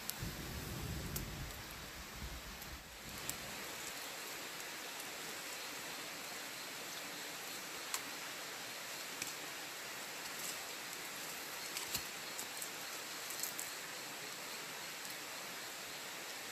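Smouldering wood fire giving a steady hiss with scattered sharp crackles and pops, as sticks rake through the embers and ash. A low rumble sits under it for the first few seconds.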